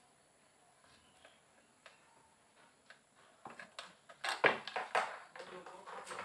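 Sharp clicks and knocks as small parts are handled on the metal control box of an electric screwdriver. They come after about three and a half seconds of near quiet, with the loudest about four and a half seconds in.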